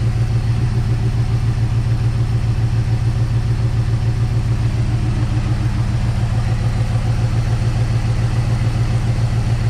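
1958 Dodge Coronet Lancer's carbureted V8 idling steadily under an open hood, with a fast, even pulse. The engine is running poorly, and the owner traces it to plug wires that fire only intermittently or not at all.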